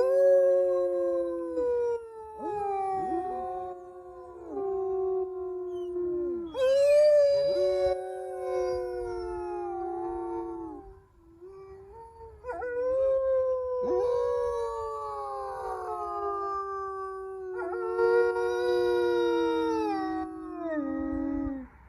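Wolves howling together in chorus: several long howls overlapping and sliding slowly down in pitch, with short gaps, until they break off near the end. A family bonding howl, a way of affirming pack unity.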